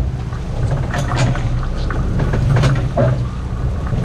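Sportfishing boat's engine running with a steady low drone, with scattered short clicks and knocks on deck over it.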